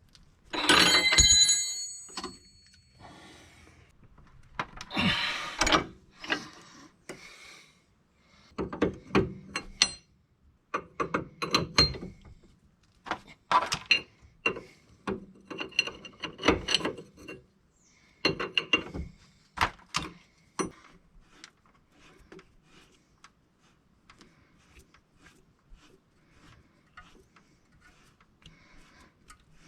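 Hand ratchet wrench clicking in quick bursts, tightening the nuts on new sway bar end links, with a ringing metal tool clink about a second in.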